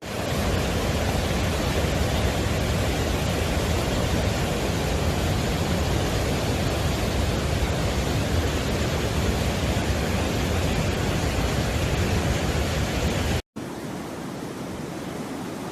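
Floodwater rushing in a steady, loud roar. About 13 seconds in it breaks off abruptly and resumes quieter and duller.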